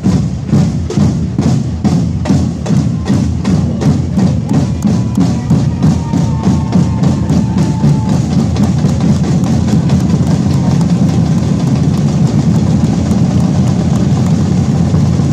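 Drums beating a fast, regular rhythm that thickens into a dense, continuous rolling beat after about eight seconds.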